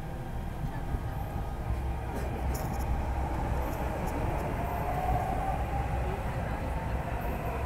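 Delhi Metro train running, heard from inside the carriage: a steady low rumble with a faint whine that swells slightly midway.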